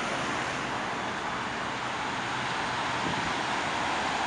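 Steady noise of multi-lane expressway traffic: many cars passing close by, mostly tyre hiss on the pavement, swelling slightly a little after the middle.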